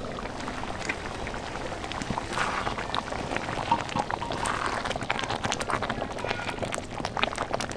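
Thick lentil dal simmering in a pot, bubbling with many small irregular pops and plops over a steady hiss.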